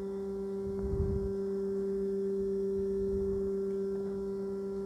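Fuel injector cleaning and test bench humming steadily, a low electrical hum with a higher overtone, while it runs a leak test to check whether any injector is stuck open.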